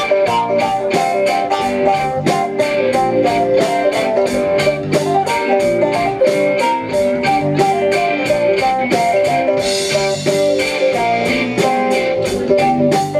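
Live rock band playing an instrumental stretch with no singing: electric guitar to the fore over bass, keyboard and a steady drum beat, with a cymbal crash about ten seconds in.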